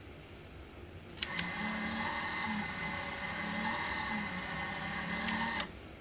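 Small battery-powered electric motor of a toy Casdon Hoover washing machine turning the drum: it starts with two clicks just over a second in, runs with a steady high whine and a low pulsing for about four seconds, then cuts off with a click. The owner thinks the motor is weak and needs replacing, as the drum struggles to turn.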